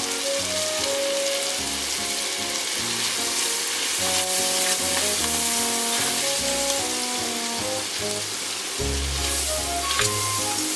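Diced bacon, onion, celery and carrot sizzling steadily in butter in a pot as flour is added and stirred in with a wooden spoon, starting a roux.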